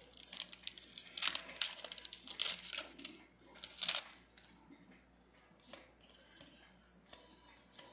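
Foil Pokémon booster pack wrapper being torn open and crinkled: a dense run of rips and crackles for about four seconds, then only a few faint rustles.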